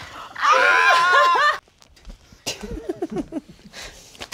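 A loud, high-pitched squealing laugh from a woman, about a second long. After a short pause comes a run of soft, whimpering mock sobs.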